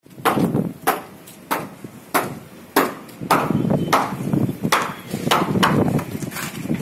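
Hand hammer striking in a steady rhythm, about three blows every two seconds, with rougher scraping and knocking between the blows in the second half.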